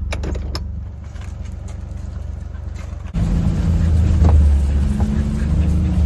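A utility vehicle's engine runs as a steady low drone, with a few sharp clicks at the start. About three seconds in it cuts abruptly to a louder, fuller engine drone.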